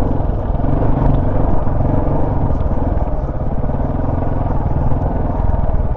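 Off-road motorcycle engine running as the bike is ridden along a rough dirt trail, heard from on board, its revs rising and falling.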